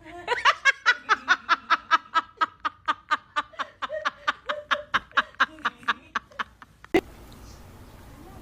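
A person laughing in a long run of rapid ha-ha bursts, about five a second, stopping about six and a half seconds in, followed by a sharp click.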